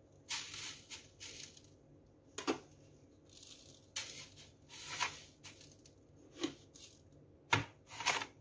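Brown sugar being spooned onto a plastic serving tray and spread with a metal spoon: irregular gritty scrapes and pouring hisses, with a few sharper clicks of the spoon against the tray.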